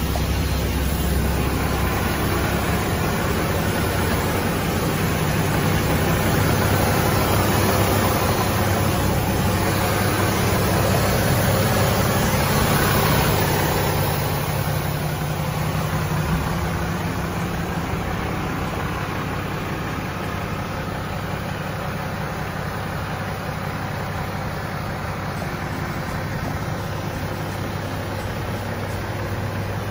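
Hino Profia heavy truck's diesel engine idling steadily, a little quieter in the second half.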